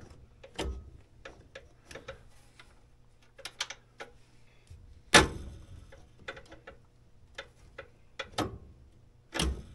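Irregular metallic clicks and knocks from hand tools working on a snowmobile's chain and belt drive, with one louder clank about five seconds in.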